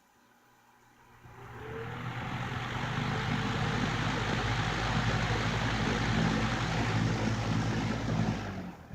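2017 Lasko Weather Shield 20-inch box fan starting up on low speed. A rising whine comes in about a second in as the motor spins up, then a steady rush of air over the motor's hum, which stops near the end.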